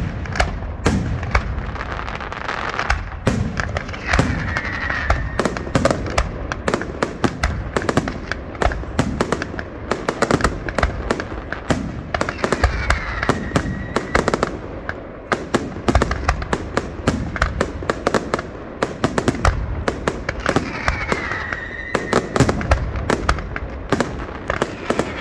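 Aerial fireworks going off in a dense, rapid barrage of bangs and crackles with no let-up. A short falling whistle cuts through three or four times.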